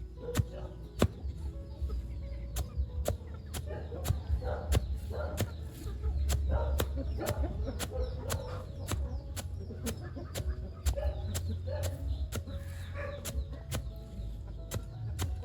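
Chickens clucking, with sharp, evenly spaced clicks about three times a second throughout and a steady low hum underneath.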